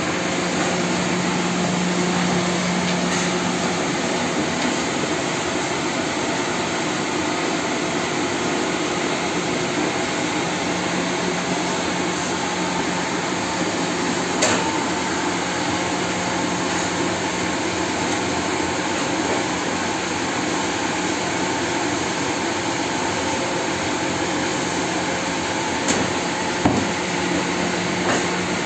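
Steady whirring noise of bakery machinery, with a low hum that stops a few seconds in and returns about seven seconds later, and a few sharp knocks around the middle and near the end.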